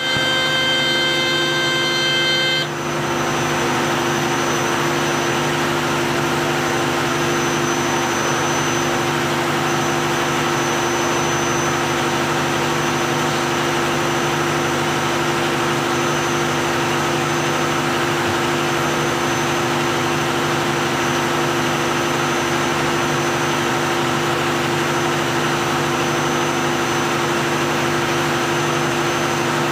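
A fishing trawler's diesel engine running steadily under way, a constant drone with the rush of the wake behind it. For about the first two and a half seconds a steady high tone of several pitches, like a horn, sounds over it and then stops abruptly.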